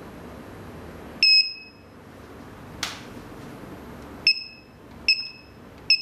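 Security alarm keypad beeping: one longer beep about a second in, then three short beeps about a second apart near the end as keys are pressed to enter a code. A short click comes between them.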